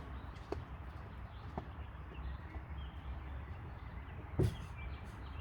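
BMW 520d diesel car with a low steady rumble and three irregular knocks, the loudest about four seconds in: the strange noise the owner traced to a faulty electro-valve.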